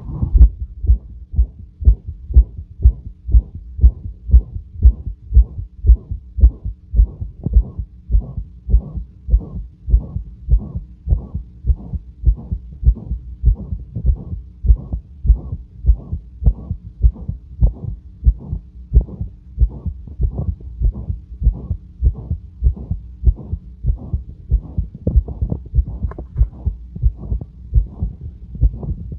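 A person's heart heard through a stethoscope, beating regularly at rest, with a loud, harsh whooshing heart murmur with every beat. A faint steady hum lies underneath.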